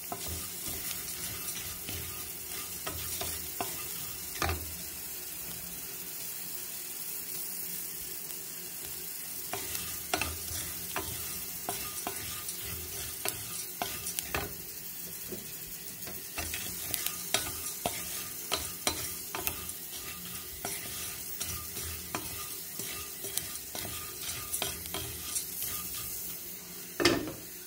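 Wooden spatula stirring and tossing puffed rice in a metal pan: a steady dry rustle of the grains, with frequent scrapes and taps of the spatula against the pan. One louder knock comes near the end.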